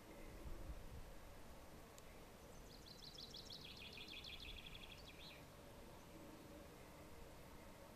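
Near-silent outdoor background; a few seconds in, a songbird sings one fast trilled phrase, a little under three seconds long, that steps down in pitch.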